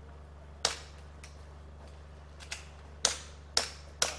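Airsoft guns firing single shots: four sharp cracks at uneven intervals, with a couple of fainter shots between them, over a steady low hum.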